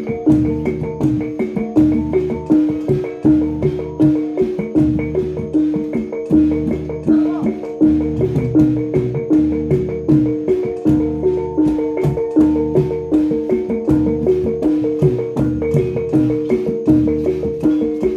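Javanese gamelan playing jatilan dance accompaniment: struck bronze pot gongs and gongs ring out in a fast, repeating pattern with a steady beat.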